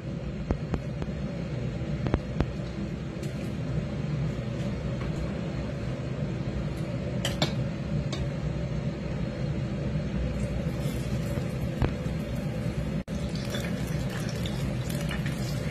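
Steady low rumble with scattered clicks and taps, then, from about 13 seconds in, fish pieces sizzling and crackling as they fry in hot oil in a pan.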